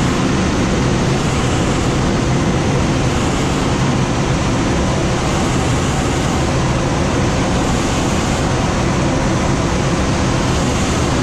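Steady rushing airflow noise of a glider in flight, unchanging, with a low steady hum underneath.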